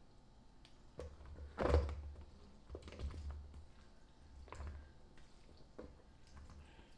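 A plastic spatula scraping macaroni salad out of a glass mixing bowl, with a handful of knocks and soft thuds as the spoon hits the bowl and clumps of salad drop into a plastic bowl below. The loudest knock comes just under two seconds in.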